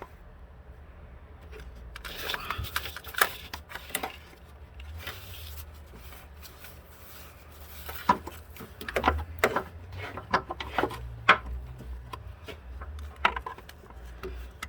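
Scattered clicks, knocks and rubbing from hand tools and parts being handled in the engine bay, over a low steady hum. The sharpest knocks come about three, eight, nine and eleven seconds in.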